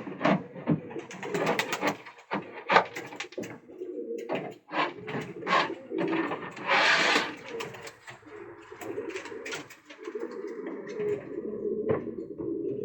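Domestic pigeons cooing in a loft, a steady low murmur that fills the second half. Scattered sharp clicks and scuffs come through the first half, with a short rustling flurry about seven seconds in.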